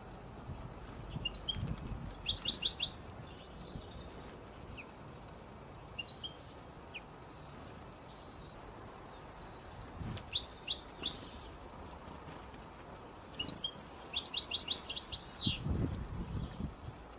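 A small songbird sings three short phrases, each a quick run of high repeated notes, with a few single chirps between them.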